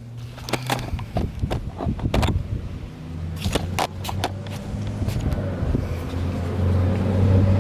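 A few sharp clicks and knocks, then from about three seconds in a vehicle engine running with a steady low hum that grows louder.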